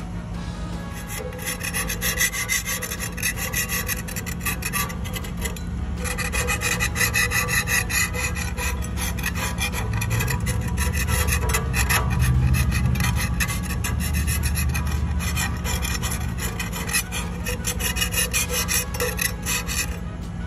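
Metal scraper blade scraping paint off the steel tube of a Doodle Bug minibike frame in repeated strokes, with a brief pause about six seconds in. The paint has been softened by aircraft paint remover and is being stripped to bare metal.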